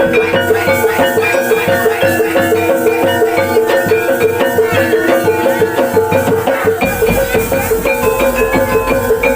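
Javanese gamelan music for barongan: metallophones ring out a repeating melody over drums at a fast, steady beat.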